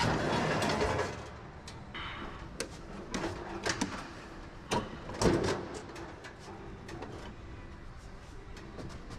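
Scattered knocks and clunks of a heavy commercial garage door operator being shifted by hand on a metal material lift, with rustling in the first second and the loudest knock about five seconds in.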